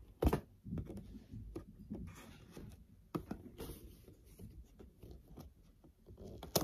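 Handling noise from a toy's cardboard box: scattered taps, knocks and rubbing, with a sharper knock just after the start and another at the very end.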